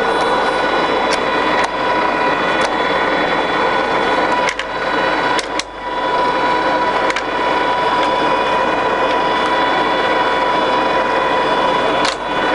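Jessey Major 1860 centre lathe running under power, its headstock gearing giving a steady hum with a high whine. About halfway through, the running dips briefly twice, with a few sharp clicks.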